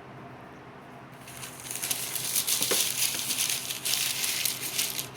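Crinkling and rustling handling noise as crumbly, unchilled cookie dough is rolled up by hand. It starts about a second in and goes on in irregular crackly bursts.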